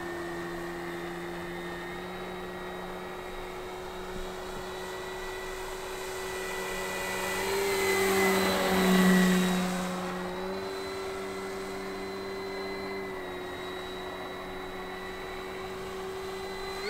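Electric motor and propeller of an E-Flite Carbon-Z Cessna 150 Aerobat RC plane in flight, a steady whine that shifts pitch slightly with the throttle. It grows louder as the plane makes a close low pass about halfway through, then fades as it flies off.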